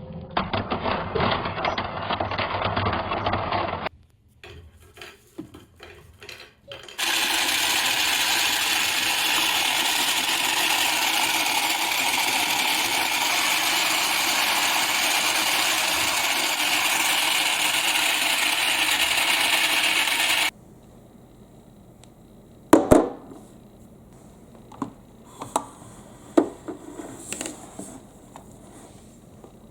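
Small mini washing machine running with water and glass marbles churning inside, a steady whirring wash that stops abruptly. After it come light scattered clicks of marbles knocking together, with one sharp loud clack.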